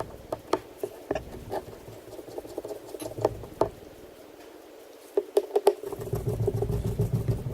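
Irregular small clicks, taps and scratches of small hand tools and fingers working on an iPad Mini during a screen repair, with a denser run of clicks a little past the five-second mark.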